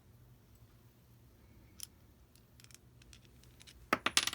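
Small metallic clicks of screws being handled against a freshly magnetized screwdriver tip: a faint tick about two seconds in, then a quick cluster of sharp clicks near the end.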